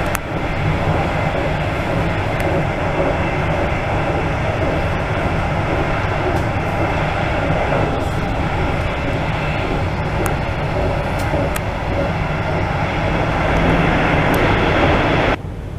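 Electric passenger train at speed heard from inside the coach: a steady rumble of wheels on track and running noise, getting louder near the end as the train enters a tunnel, then dropping suddenly just before the end.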